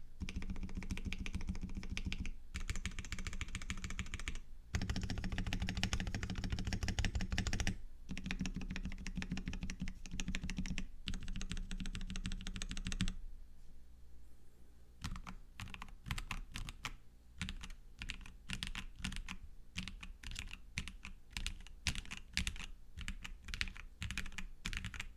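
Typing on a KBD67 Lite mechanical keyboard with lubed and filmed JWK black linear switches, spring-swapped, and Osume Sakura keycaps. Fast continuous typing with a few short pauses for about the first thirteen seconds, then slower, separate keystrokes.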